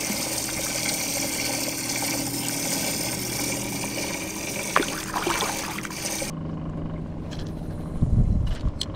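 Water trickling and splashing at a boat's side as a largemouth bass is let go, over a steady hum. About six seconds in this cuts off abruptly to a quieter low hum, with a few low knocks near the end from hands handling a spinning rod and reel.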